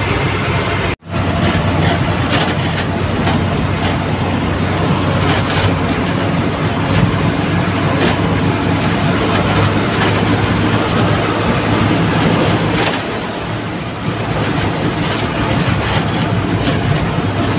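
Truck engine running and road noise heard from inside the cab while driving, steady throughout. The sound cuts out briefly about a second in.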